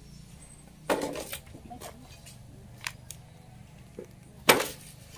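A few short scraping, rustling strokes of a stick broom worked over dirt and leaf litter. There is a strong stroke about a second in, a few lighter ticks, and the loudest stroke near the end.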